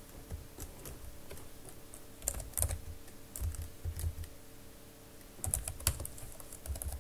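Typing on a computer keyboard: irregular short runs of keystrokes with pauses between them.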